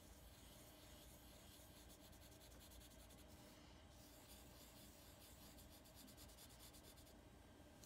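Faint scratching of a Sharpie permanent marker's felt tip on paper, worked in quick short strokes to fill in a small solid area, with a brief pause a little past halfway.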